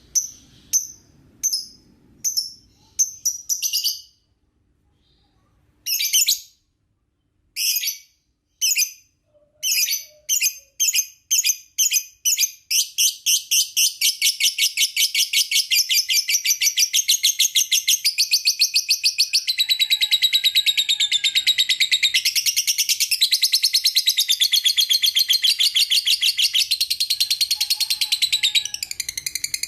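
Young lovebird calling: separate sharp chirps at first, then from about twelve seconds in a fast, unbroken chattering trill, the long excited song that lovebird keepers call ngekek.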